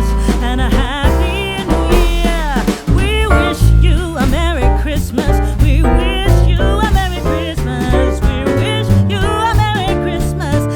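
Background music: a song with a sung vocal line over bass, guitar and a steady beat.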